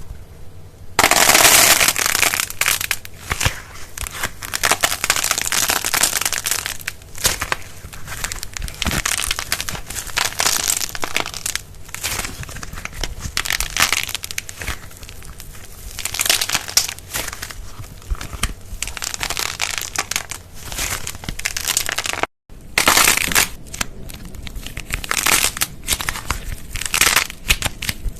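Slime being squeezed and kneaded by hand, giving a dense run of crackling, popping clicks that starts about a second in, with a brief cut to silence about three quarters of the way through.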